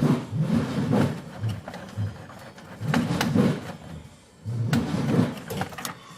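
Volkswagen Beetle's starter cranking the air-cooled flat-four slowly in short, uneven bursts, with a pause about four seconds in. The engine never catches: the battery is too weak to spin it.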